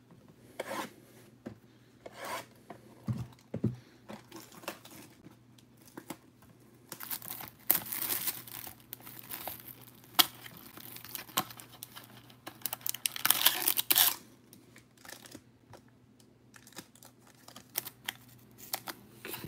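Hands tearing open trading-card packs, cardboard and plastic wrapper, with crinkling and rubbing of the packaging. There are two longer bursts of tearing, about seven and about thirteen seconds in, with light clicks and rustles of cards and packaging between them.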